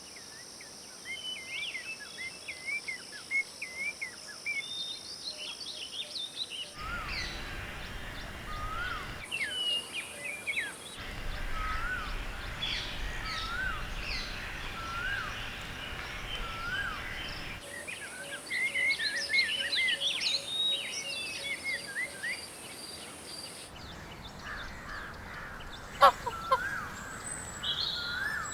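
Many small birds chirping and calling over each other, with one bird repeating a short rising call about once a second in the middle; the background hiss and low rumble switch abruptly several times where recordings are spliced together. A few louder, harsher calls come near the end.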